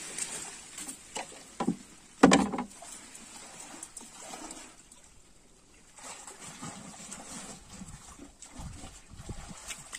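A few hollow knocks against a wooden canoe as a person shifts his weight at its bow, the loudest about two seconds in, followed by faint water sloshing and small low thuds.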